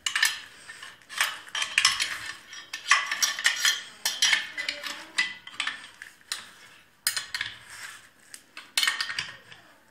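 Metal hand tools and small engine parts clinking and scraping in irregular bursts as a 14 mm spanner is worked on the mower engine's bolts.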